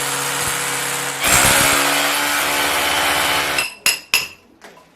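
Electric drill boring holes into the wall for the split AC's 3-inch pipe hole: a steady motor whine that gets louder about a second in as the bit bites, then stops. Two sharp metallic clinks follow near the end.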